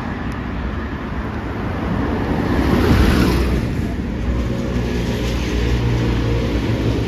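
City street traffic: cars driving past on an avenue, one passing close and louder about three seconds in, with a steady low engine hum in the second half.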